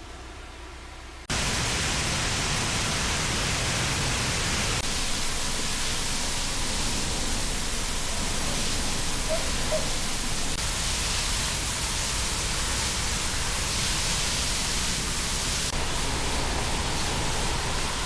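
Loud, steady rushing noise of exterior cleaning equipment at work, cutting in suddenly about a second in and holding even throughout.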